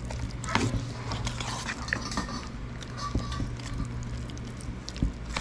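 Metal spoon stirring thick corn-and-vegetable bakwan batter in a stainless steel bowl, with irregular clinks and scrapes of spoon on steel.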